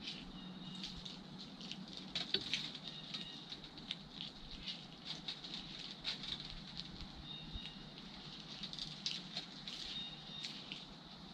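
Squirrel eating seeds at a bird feeder at close range: irregular quick clicks and small crunches of husks being cracked and chewed.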